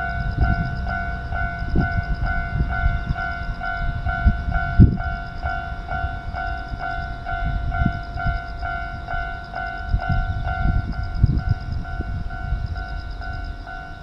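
Japanese level-crossing warning bell ringing steadily, an electronic ding repeating about two and a half times a second, while the crossing is active. Irregular low rumbles sound underneath.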